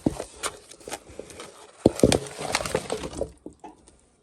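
Clattering of pots or dishes being handled: a run of sharp knocks and clinks, loudest about two seconds in, fading out near the end.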